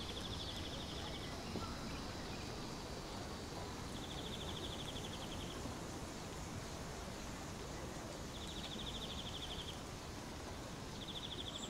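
Outdoor ambience: a steady hiss with a high, rapid trill that comes back about every four seconds, each time for just over a second.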